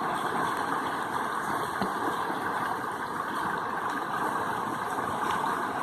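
Steady roar of a flooded creek's rushing water.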